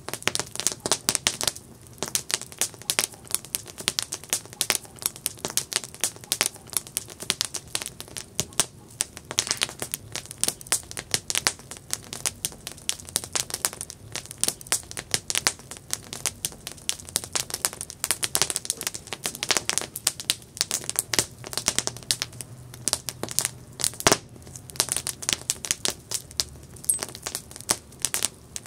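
Campfire burning wood, with constant irregular crackling and popping and one sharper pop a little after halfway through.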